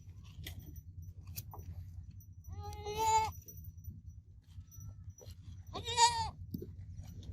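Goat kid bleating twice, two short calls about three seconds apart, over a low steady hum.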